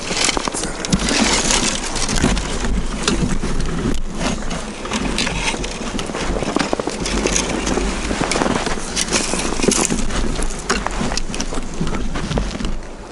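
Footsteps crunching through deep snow, a heavier crunch about every second or so among many small crackles, over a steady low rumble.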